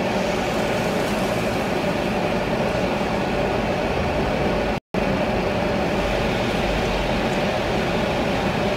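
Steady rushing noise of the extractor fan built into the induction hob, with hot oil frying in the pan. The sound cuts out for a split second about halfway through.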